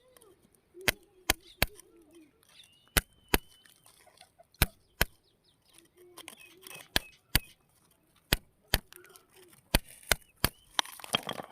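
Sharp hard knocks, mostly in pairs about half a second apart, repeated every second or two.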